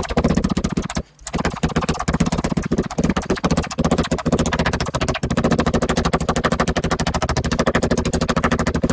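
Metal meat-tenderizer mallet pounding a raw pork slice flat on a wooden cutting board: rapid, even blows with a brief pause about a second in.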